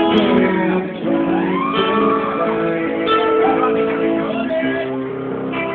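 Live band music with strummed and picked electric guitar, and a voice over it.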